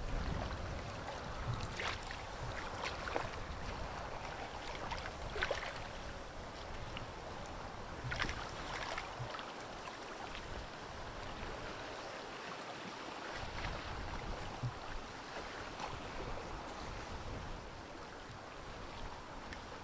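River ice drift during spring breakup: a steady wash of moving water and floating ice floes, with occasional sharp crunches and knocks as floes strike and grind against each other.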